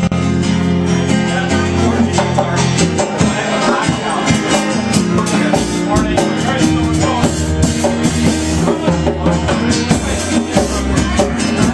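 Live band music: strummed guitars over a steady beat, with sustained bass notes.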